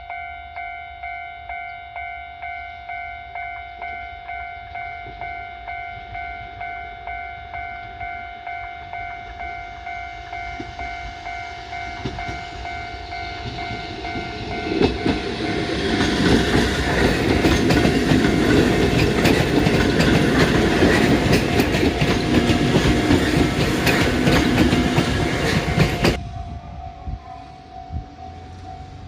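Japanese level-crossing warning bell dinging in a steady repeating rhythm, then a Kotoden electric train approaches and passes loudly with wheel clatter for about ten seconds. The passing noise cuts off abruptly, leaving the crossing bell ringing more faintly.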